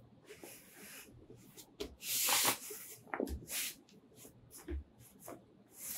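Gloved hands rubbing and patting a padded fabric bow case: short brushing rustles, the loudest about two seconds in, with a few soft thumps.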